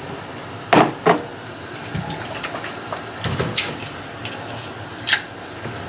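Kitchen items being handled at a counter: two knocks close together about a second in, then a couple of lighter clicks later.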